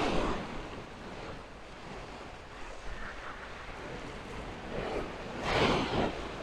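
Small waves breaking and washing up the beach, rising to a louder surge about five and a half seconds in, with some wind on the microphone.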